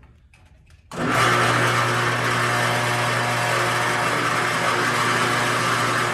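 A workshop machine's electric motor switches on abruptly about a second in and runs steadily, with a strong low hum under a dense whir. Before it, only a few faint clicks.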